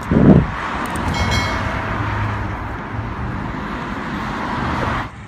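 Steady rush of road and wind noise from a moving car, with a loud low thud at the start and a brief high ringing tone about a second in. The noise cuts off suddenly near the end.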